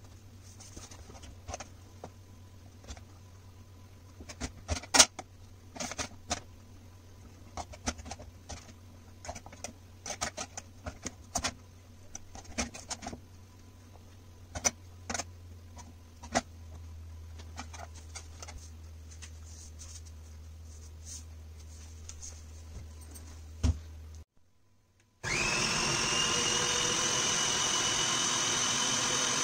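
Scattered light knocks and clicks from ingredients being handled into a plastic food processor bowl. Near the end, the food processor's motor starts with a quick rising whine and then runs steadily, blending flour and butter for pastry dough.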